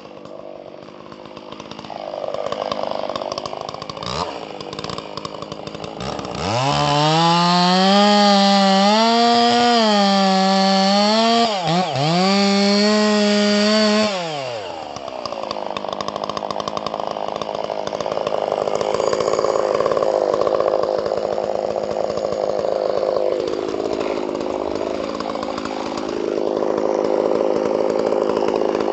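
Custom-ported Stihl MS660 two-stroke chainsaw cutting semi-dry eucalyptus firewood. After a short blip of the throttle it runs at full revs with a high, clear note that wavers as the chain bites, dips briefly, then turns lower and rougher under load for the rest of the cut.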